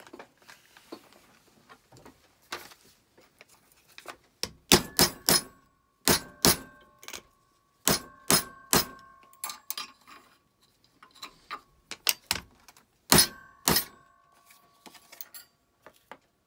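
A hammer tapping a metal fork flat against a steel vise jaw: after some light metal handling, about a dozen sharp metallic taps start about four seconds in, coming in quick groups of two to four, several leaving a brief ringing tone from the struck metal.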